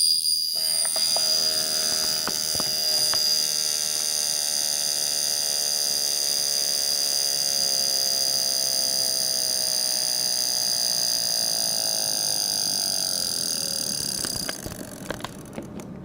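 Jaeger-LeCoultre Memovox travel alarm clock's alarm going off: a steady, loud, long buzz that sags slightly in pitch as it runs. It stops near the end, followed by a few light clicks.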